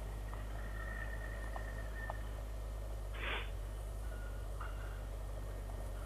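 Motorcycle riding along a gravel track, heard muffled as a steady low hum from inside the helmet, with a short hiss about three seconds in.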